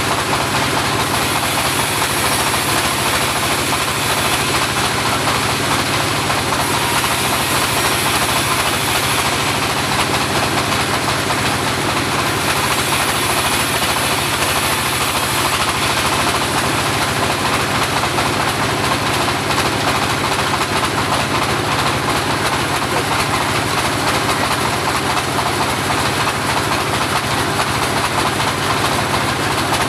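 Homemade portable bandsaw running steadily, a loud continuous machine noise with no let-up. A high hiss comes and goes several times during the first half.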